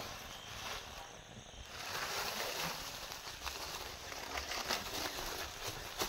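Woven plastic sack rustling and crackling as it is handled and dragged over dry ground, with many short crackles, busier from about two seconds in.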